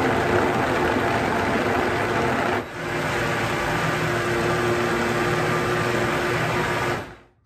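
Countertop blender running, blending coconut flesh into coconut water to make coconut milk. The motor dips for a moment about two and a half seconds in, then cuts off near the end.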